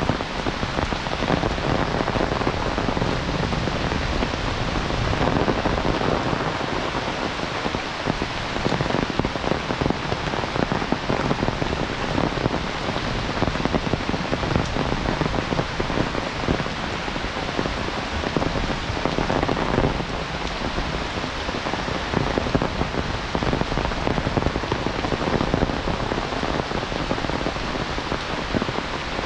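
Heavy rain falling steadily: a dense, even patter of drops hitting surfaces.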